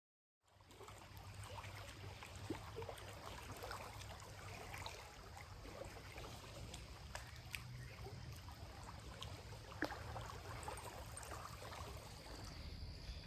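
Faint water lapping and trickling along a lake shore, with small irregular splashes and ticks.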